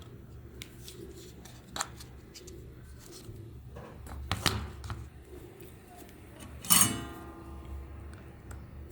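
Small clicks and taps of tools and parts being handled on a workbench, with a sharper knock about halfway and one loud metallic clink that rings briefly near the end, over a steady low hum.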